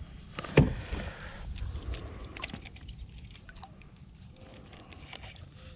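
Kayak rocking on the water, light water sloshing against the hull, with one sharp knock about half a second in and a few faint clicks after.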